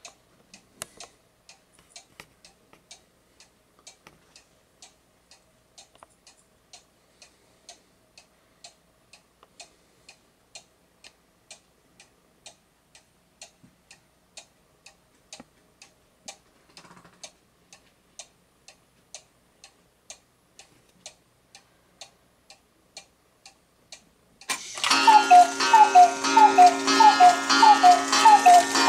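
Romance Chateau cuckoo clock ticking steadily. About 24 seconds in, its hourly performance starts: a much louder mechanical music-box tune with a quickly repeating pattern of falling notes.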